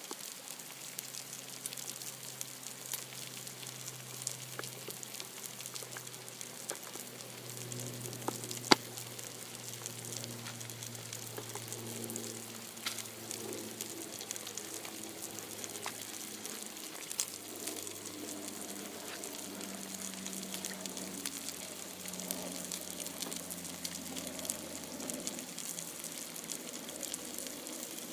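Food frying: a steady sizzle with scattered crackles and small pops, and one sharp click about nine seconds in.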